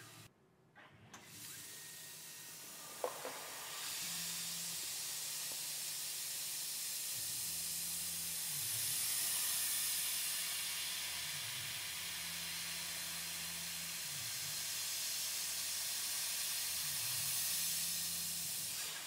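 Mist coolant hissing from the nozzle of a Tormach 440 CNC mill while a 1/4-inch mill/drill works an aluminium part. Under it runs a low machine hum that dips in pitch and recovers about four times. The hiss builds about four seconds in, after a single click about three seconds in.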